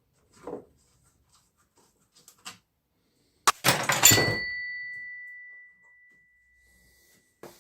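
A hard metal object clattering down onto a hard surface about three and a half seconds in, leaving a clear ringing tone that fades out over about three seconds. Faint handling noises come before it.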